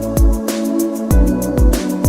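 Electronic background music with a steady beat: deep kick-drum hits, fast hi-hat ticks and sustained synth chords.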